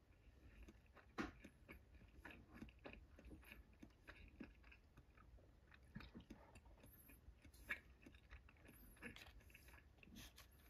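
Faint chewing of sushi: soft irregular mouth clicks, with a couple of louder clicks about a second in and near eight seconds.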